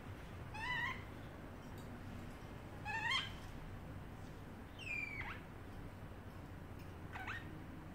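Parrotlet giving four short, squeaky calls about two seconds apart, some rising and some falling in pitch.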